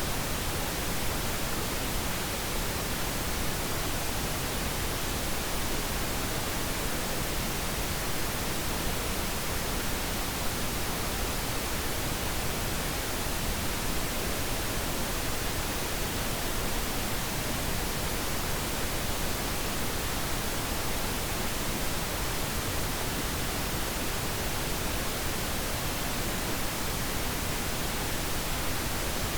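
Steady pink noise: an even, unchanging hiss spread across the whole range, used as sleep noise.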